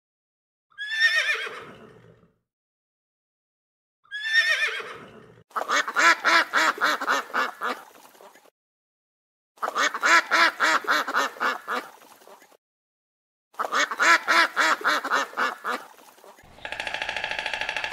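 An animal calling: two short calls that slide down in pitch, then three long runs of rapid, pulsed calls separated by pauses. Near the end a different, steady sound starts.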